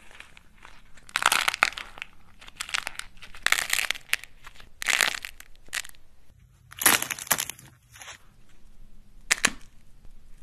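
Dried, paint-coated clay cracking and crumbling as it is squeezed in the hands. About six separate crunches come roughly a second apart, with softer crumbling in between.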